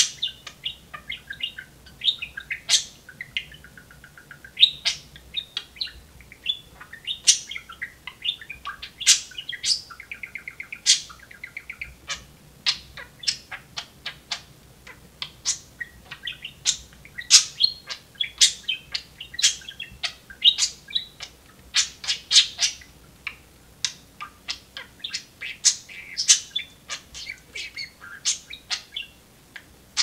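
Budgerigar chattering: a near-continuous run of short, sharp chirps, several a second, mixed with a few longer warbled phrases.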